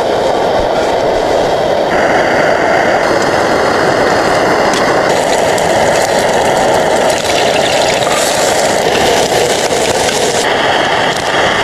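A loud, steady rushing noise with no speech. Its tone shifts abruptly a few times.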